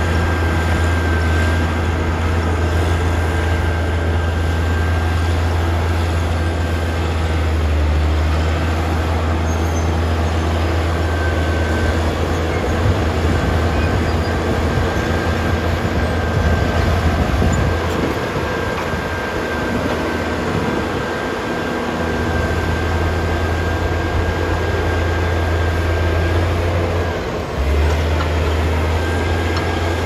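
Diesel engines of a Caterpillar crawler bulldozer pushing soil and a Hitachi excavator working alongside it, a steady low drone with a faint high whine above it. The low drone eases off for a few seconds past the middle and dips briefly near the end.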